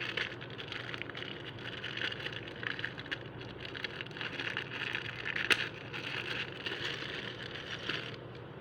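Crackling, rustling handling noise, with one sharp click about five and a half seconds in.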